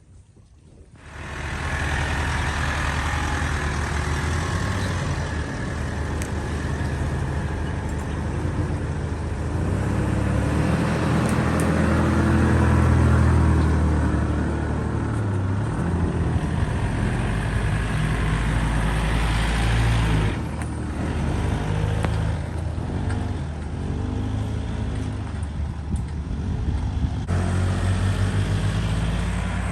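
A motor vehicle driving: steady engine and road rumble, starting about a second in.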